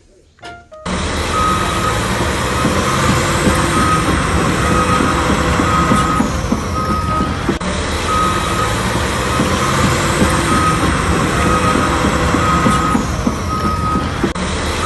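Truck engine running with a reversing alarm beeping at about two beeps a second. The sound starts about a second in and starts over near the middle.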